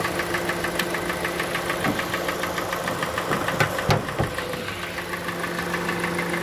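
2014 Kia Sportage's 2.0-litre G4NA four-cylinder petrol engine idling, not yet fully warm, with a rapid, even knock running through it, plus a few sharper clicks. The mechanic expects this knock to mean scored cylinder walls, which he calls usual for this engine.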